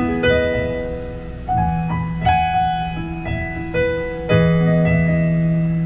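Casio electronic keyboard playing sustained chords in a piano voice, with an electric bass guitar holding low notes underneath; an instrumental passage with no singing, new chords struck every second or two.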